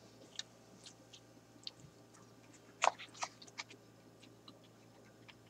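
A man biting into and chewing a burger topped with crispy garlic chips, heard close up: faint, scattered short mouth clicks, with a couple of louder ones about three seconds in.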